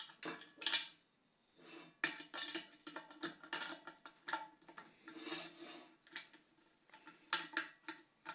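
Phillips screwdriver tightening bolts through a handle into a metal pressure-cooker pot: irregular clicks and scraping of metal parts, in short bursts.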